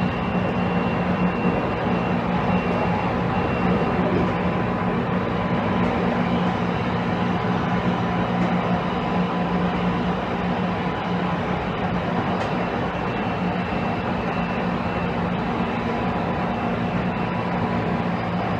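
Interior running sound of a JR Kyushu 813 series electric train's motor car travelling at a steady speed: a constant hum from the motors and gears over wheel-on-rail noise, with no rise or fall in pitch.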